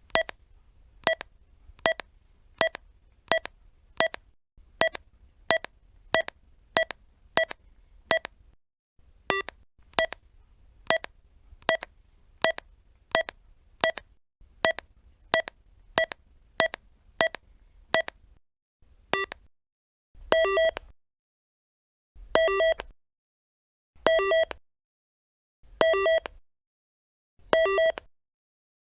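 Walkie-talkie button presses, each giving a short electronic key beep, about two a second for the first twenty seconds or so. After that come longer beeps of several tones, about one every two seconds.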